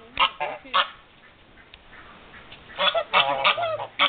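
Domestic geese, an African goose and a Dewlap Toulouse gander, honking in short loud calls. There are three honks in the first second, then a quick run of several more near the end.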